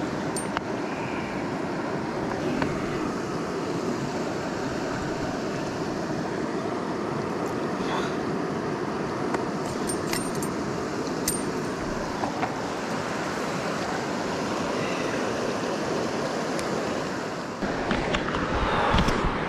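Steady rush of river water running over stones, with a few small clicks of hands working the hook out of a catfish. Near the end a louder low rumble of wind on the microphone comes in.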